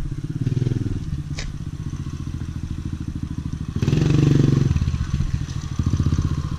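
Kawasaki KLX110 pit bike's small single-cylinder four-stroke engine running, revving up briefly about four seconds in as the bike is ridden off.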